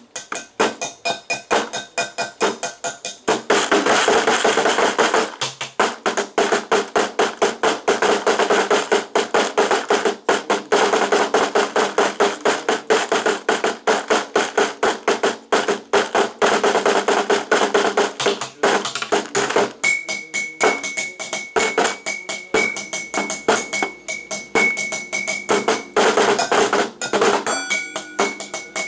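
Fast drumming with sticks on household items: a clear plastic container and a metal bowl are struck in quick, dense rhythmic strokes. A steady high ringing tone comes in about two-thirds through.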